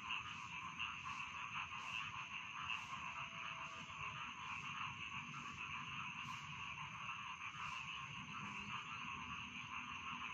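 Chorus of rice-field frogs calling continuously, many overlapping croaks merging into a dense, steady din, with a thin high-pitched tone running alongside.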